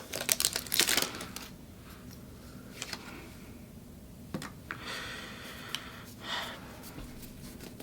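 Foil booster-pack wrapper crinkling for about a second, then scattered soft clicks and a few brief swishes of trading cards being handled and slid against each other.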